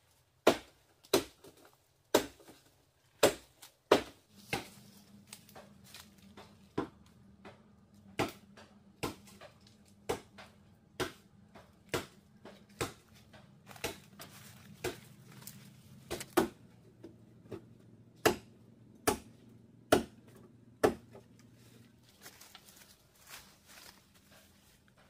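Repeated chopping strikes with a blade, about one sharp hit a second; near the end they come less often and fainter.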